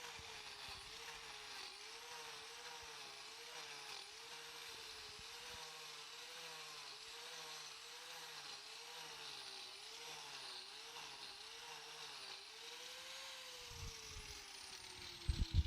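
Angle grinder with a wood-carving attachment running, its pitch dipping and recovering in a steady rhythm as it cuts into wood. About thirteen seconds in it is switched off and winds down with a long falling whine, and a few low knocks follow near the end.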